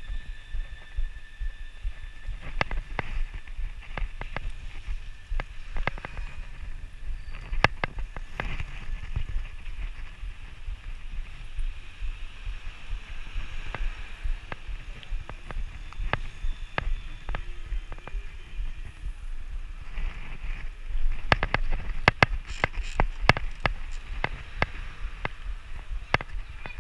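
Bicycle being ridden over rough street asphalt: a steady low rumble of road vibration and air on the microphone, with frequent sharp rattles and clicks from the bike's frame and wire basket, thicker about twenty seconds in.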